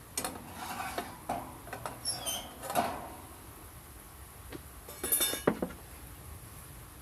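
Small hard objects clicking, clinking and rattling in two bouts of handling, with a few short metallic rings in the first bout and a brighter rattle in the second.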